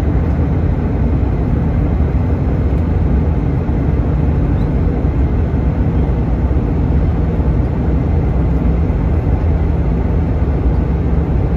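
Steady airliner cabin noise: the rumble of the wing's turbofan engine and rushing air, heard from inside the cabin.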